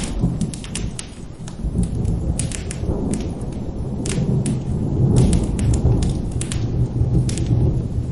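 Rolling thunder rumbling low and loud, swelling about halfway through and easing near the end, over steady rain and the sharp pops and crackles of a wood fire.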